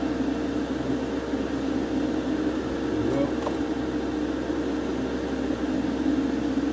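Extraction fan running steadily with a constant hum.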